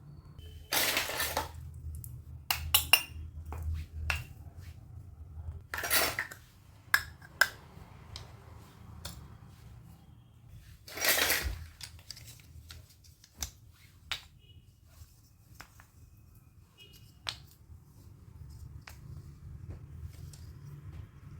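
Small plastic toy kitchen pieces clicking and clattering as they are handled and set down, with three longer, noisier scrapes about five seconds apart.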